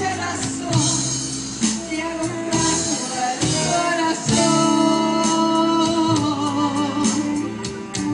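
A woman serenading, singing into a handheld microphone over amplified instrumental backing, holding one long note about four seconds in.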